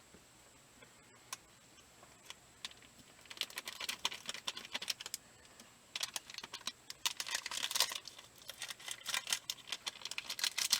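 Crinkling and light ticking of a plastic packet being handled and emptied of powder into a plastic jug, in three spells of dense crackle starting about three seconds in, after a few scattered clicks.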